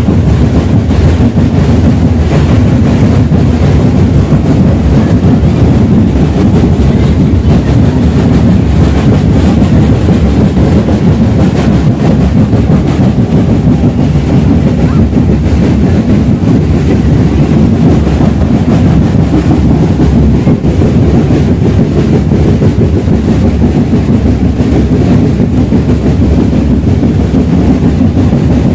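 Loud, continuous street-parade drumming: many drums beaten in a fast, dense rhythm, so loud that the recording is saturated.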